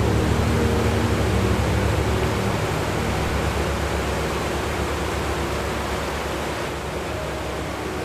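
Steady, even rush of water from a cascading waterfall pouring over granite rocks. Faint background music fades out over the first few seconds.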